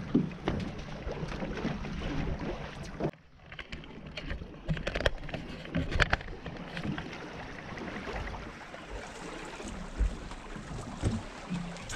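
Ambient noise aboard a small fishing boat at sea: wind on the microphone and water noise, with scattered knocks and clicks from the boat and tackle. The sound drops away sharply for a moment about three seconds in.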